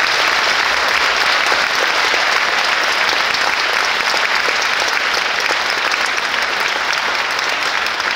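Large audience applauding steadily: dense, continuous hand-clapping that eases off slightly near the end.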